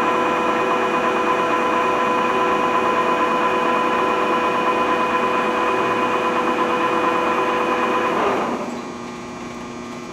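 Harrison 15 x 40 engine lathe running at its 245 rpm spindle speed, a steady gear whine with several fixed tones; about eight seconds in the spindle is stopped, the pitch falls away and the sound drops to a quieter steady hum. The machine is on its low motor speed only, its two-speed motor's high speed being out.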